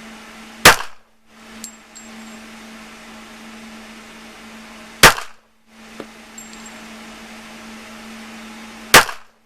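Three pistol shots, slow aimed fire about four seconds apart, each a sharp crack with a short tail, over a steady low hum.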